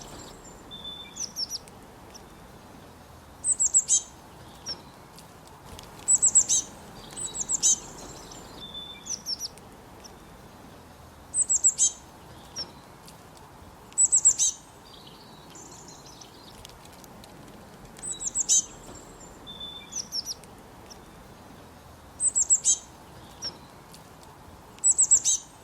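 Forest songbirds singing: short bursts of quick, very high chirps repeat every two to four seconds, with a few softer, lower calls in between.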